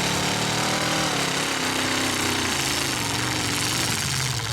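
Demolition derby truck engines running hard with a rough, rattling clatter, the engine pitch rising about a second in and falling again after another second or so.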